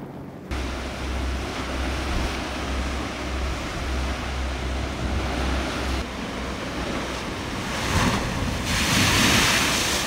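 Heavy sea swell surging and breaking against rocky sea cliffs, with wind buffeting the microphone as a low rumble. The sound starts suddenly about half a second in, and two louder wave crashes come near the end.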